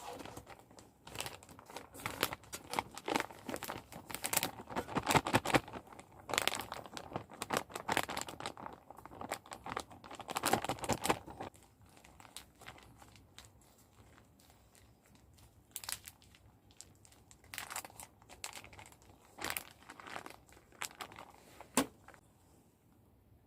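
Packaging being crinkled and torn open: a dense spell of crackly rustling lasting about ten seconds, then scattered bursts of handling near the end.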